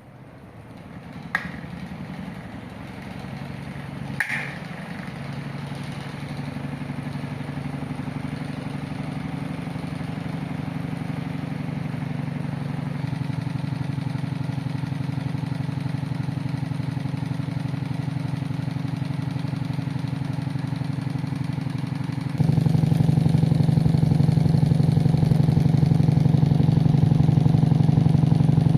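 Cadence electric fan running: a click about a second in and another about four seconds in while the motor hum builds as the blade spins up, then about 22 seconds in the hum jumps suddenly louder and holds steady.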